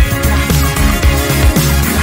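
Upbeat electronic background music with a steady beat and bass line.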